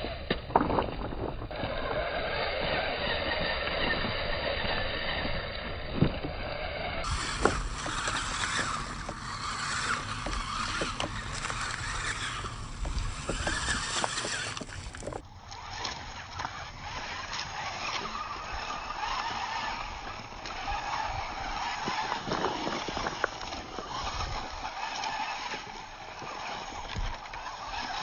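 Radio-controlled rock crawler driving over loose river stones: scattered clicks and knocks of tyres and rocks over a steady rushing noise.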